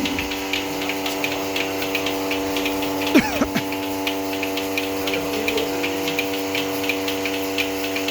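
Milking machine running: a steady hum from the vacuum pump, with the pulsator ticking evenly about three to four times a second. A brief falling tone about three seconds in.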